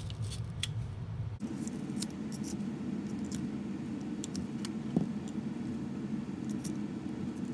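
Utility knife blade cutting through hair wrapped around a vacuum brush roll: scattered short scraping clicks over a steady background hum.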